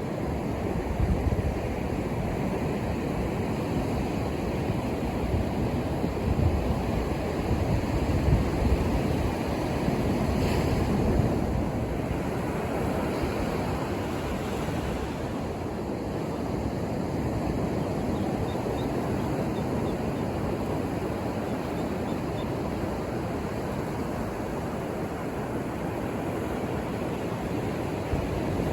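Ocean surf breaking and washing up the beach, a continuous rushing noise that swells brighter about ten seconds in, with low gusty rumbles in the first several seconds.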